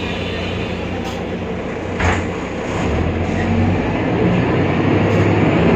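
BredaMenarini Avancity Plus city bus running, its Deutz diesel engine and driveline giving a steady low rumble, with a single knock about two seconds in and the sound growing louder after about three seconds.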